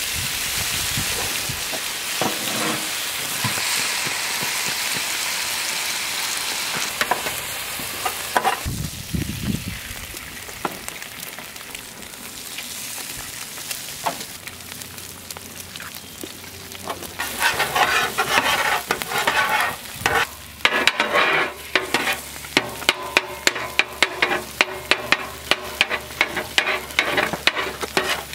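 Bacon and eggs sizzling on a flat steel griddle with a steady hiss. Past the middle, a metal spatula starts scraping and tapping rapidly on the griddle.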